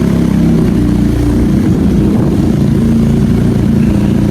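Benelli motorcycle engine running steadily at low revs, an even, unchanging note.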